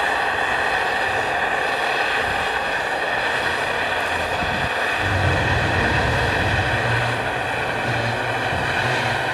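Steady hiss and drone from the C58 239 steam locomotive standing under steam as it turns on the turntable, with a low hum coming in about halfway.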